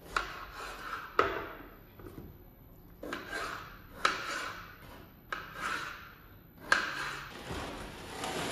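About six irregular sharp knocks on a hard surface, each followed by a brief rustle or scrape, as of things being handled and put down.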